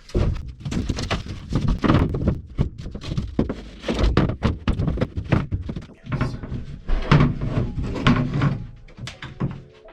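Rapid, irregular thuds and knocks against a van's body panels while insulation is worked into place inside the cargo area.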